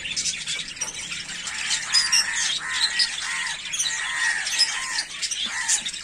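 Rosy-faced lovebirds chirping and squawking together, a constant overlapping chatter of high-pitched calls, with a run of quickly repeated calls in the middle.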